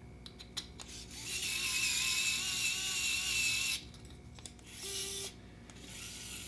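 ES20 gyroscopic electric screwdriver driving a small screw through a flight controller into a carbon-fibre frame: a few clicks, then its motor whines steadily for about two and a half seconds. A short lower hum follows about five seconds in.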